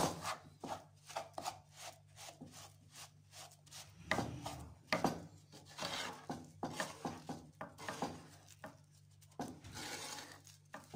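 A spatula scraping and pressing a thick semolina-and-sugar halwa mixture around a nonstick frying pan, in many short irregular strokes, as the mixture cooks into a stiff dough. A faint steady low hum runs underneath.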